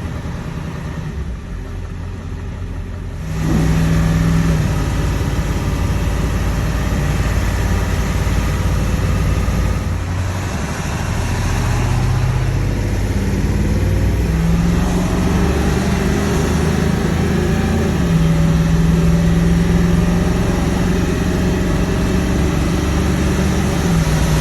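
Ford 7.3 Powerstroke V8 turbodiesel running under load, getting louder about three seconds in and its pitch shifting in steps several times as it pulls. The engine is running smoothly while still not warmed up, its cold-start trouble cured by newly fitted injector shims.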